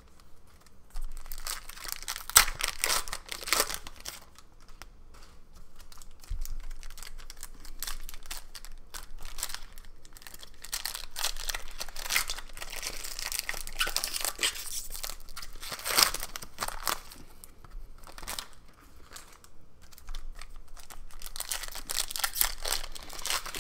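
Foil wrappers of Panini Prizm basketball card packs being torn open and crinkled by hand, in irregular crackling, tearing strokes.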